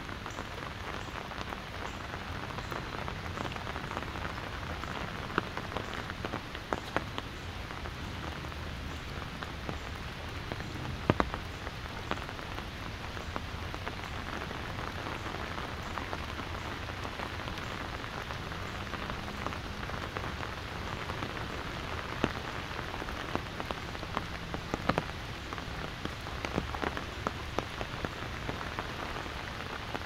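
Steady rain falling on an umbrella held overhead: a constant hiss with frequent sharp drop hits, some much louder than the rest.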